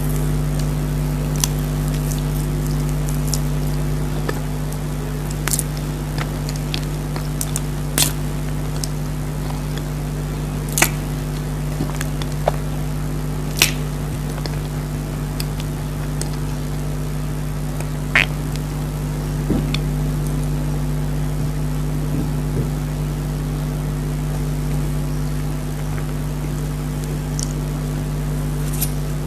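Close-miked eating of chocolate cake: scattered sharp mouth clicks and smacks at irregular intervals, over a steady low hum.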